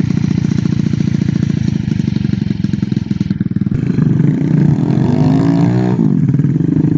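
Motorcycle engine running with a steady pulsing note, growing louder about four seconds in and rising then falling in pitch as it is revved near the end.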